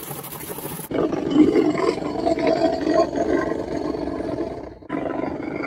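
DIY mechanical engine-sound generator in an RC model boat, giving a fast, rough knocking rumble that imitates an engine room. It starts about a second in, drops out briefly near the end and comes back.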